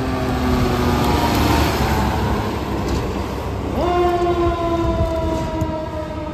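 Fire truck siren sliding slowly down in pitch, with the truck's engine loud as it goes by; about four seconds in the siren winds up sharply and then slowly drops in pitch again.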